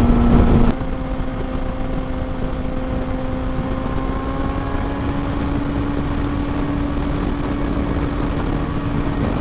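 Inline-four engine of a 2020 Kawasaki Ninja ZX6R running at a steady cruising pace, its pitch creeping slowly upward, over a constant rush of wind and road noise. The sound drops suddenly in level under a second in.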